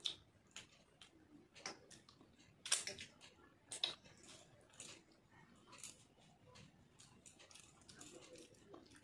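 Close-up eating sounds: chewing and mouth clicks mixed with fingers scraping and picking food off a stainless steel plate, heard as short, irregular soft clicks, the loudest a few seconds in.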